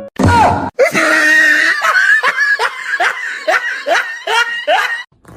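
A person laughing loudly and hard: a sharp outburst, then a run of about eight high-pitched laughs, roughly two a second.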